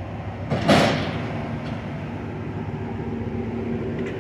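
Amtrak passenger train standing at the platform with a steady mechanical hum; about half a second in, a sudden loud hiss of released compressed air that dies away within about a second.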